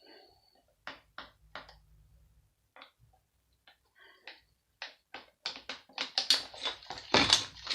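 Clicks and clinks of metal parts and screws being handled while a power supply is dismantled, a few scattered at first, then quicker and louder in the second half.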